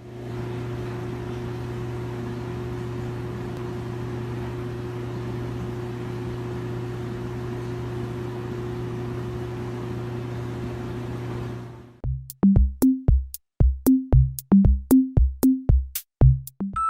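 A steady low hum for about twelve seconds, then it cuts off and an electronic drum-machine beat starts: sharp clicks over deep, falling kick drums.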